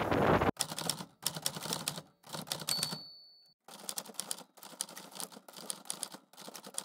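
Typewriter sound effect: bursts of rapid key strikes, with a short bell-like ding a little before the middle, following a brief moment of wind and road noise from a moving scooter that cuts off abruptly.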